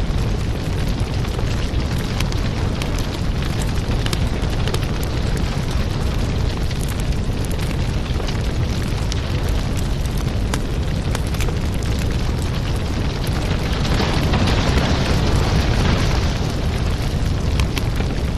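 Firewood burning: a steady low rumble of flames with many small crackles and pops from the logs. A louder hiss swells about fourteen seconds in and eases off about two seconds later.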